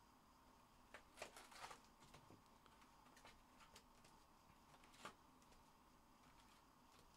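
Mostly near silence, with a few faint rustles and clicks of trading-card packs and packaging being handled: a short cluster about a second in and one more a few seconds later.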